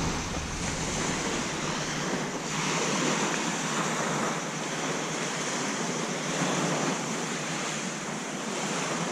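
Waves washing onto a shallow beach: a steady rush of surf.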